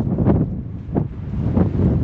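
Strong mountain wind buffeting the microphone: a heavy low rumble with irregular gusty flares every half second or so.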